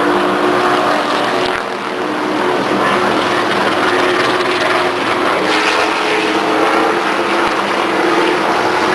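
Retired NASCAR Cup stock car's V8 engine running steadily at high revs as the car laps the oval, its pitch held level by a rev limiter. The sound dips briefly just after one and a half seconds.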